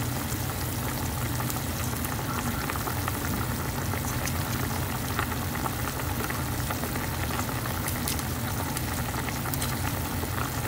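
Clear moringa-leaf soup at a rolling boil in a stainless saucepan: steady bubbling with a constant crackle of popping bubbles.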